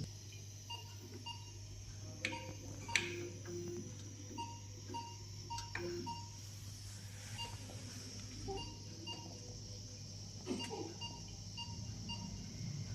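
Electronic alarm on NICU medical equipment beeping: short high beeps repeating in quick runs, over a steady low hum, with a few sharp knocks and clicks of handling.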